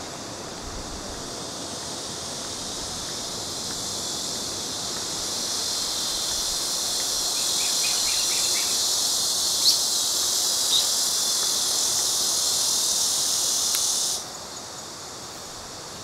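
Chorus of insects: a dense, high-pitched buzzing that swells over the first half, holds steady, then cuts off abruptly about two seconds before the end. Two brief ticks sound near the middle.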